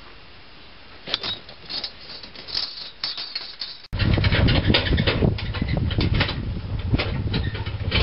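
Faint scattered clicks, then from about four seconds in the steady low running of a small vehicle's engine towing a flatbed wagon of sawn boards, with the wagon and its load knocking and rattling over a rough dirt track.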